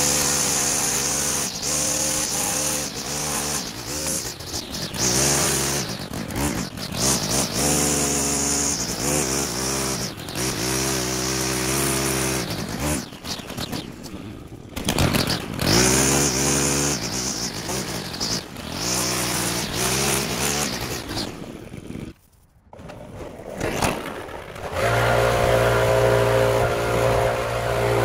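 Small petrol engines of lawn equipment running and revving up and down, with a brief dropout about three quarters of the way in, after which a steadier engine note runs.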